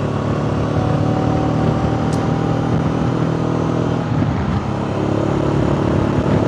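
Motorcycle engine running at a steady cruising speed, heard with wind rush through a lavalier mic inside a helmet with the visor open. The engine note wavers briefly about four seconds in, then steadies again.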